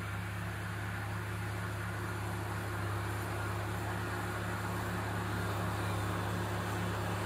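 Heavy diesel engine of a crawler bulldozer running steadily as it pushes soil and draws nearer, a little louder after about three seconds.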